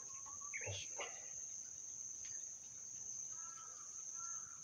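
A steady high-pitched insect sound, with a few short bird calls over it.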